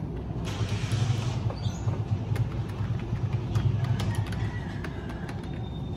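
Typing on a wireless keyboard with round typewriter-style keycaps: a run of quick, separate key clicks as a password is entered, over a steady low hum.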